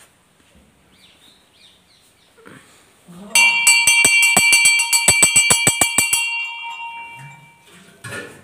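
Hanging brass temple bell rung rapidly by hand, its clapper striking about five or six times a second for about three seconds. It then rings on and fades out. A short knock comes near the end.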